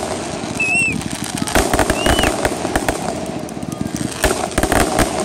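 Fireworks bursting overhead in a rapid run of crackles and bangs, with a couple of short whistles that rise and fall, about a second in and again about two seconds in.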